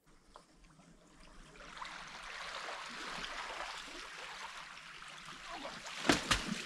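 River water rushing and gurgling, swelling over the first two seconds and then steady, with a few sharp, louder sounds near the end.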